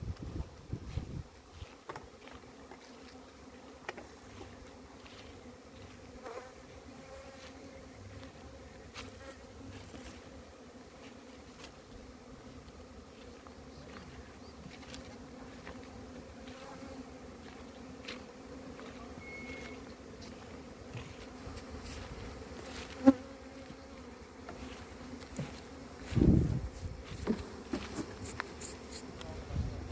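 A mass of honeybees buzzing around opened hives in a steady, droning hum, as colonies are worked for a honey harvest. A sharp knock sounds once partway through, and a few dull thumps come near the end.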